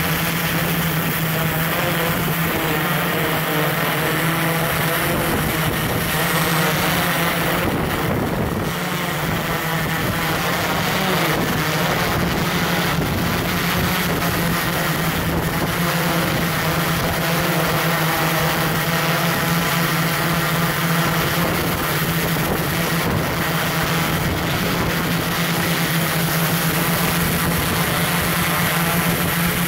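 Multirotor drone's electric motors and propellers humming steadily, heard up close from the camera carried on the drone.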